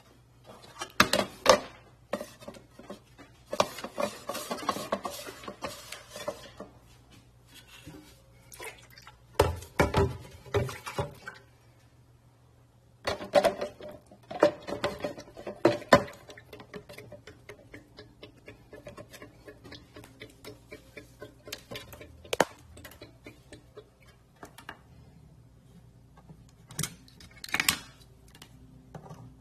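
Irregular knocks and clattering handling noise in several short clusters, with quieter rustling between them and a faint steady low hum underneath.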